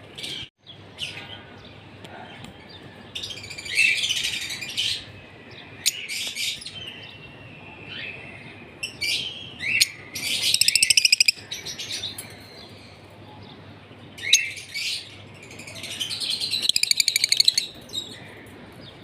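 Lovebirds chattering in high-pitched chirping bursts separated by short pauses, with fast trilling runs near the middle and again towards the end.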